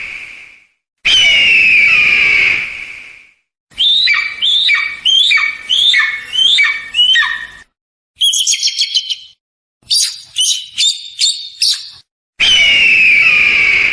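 Eagle calls: about a second in, a long hoarse scream falling in pitch. Then a run of about eight short calls, each sliding down, two a second, followed by two bursts of rapid high chattering notes. The long falling scream returns near the end.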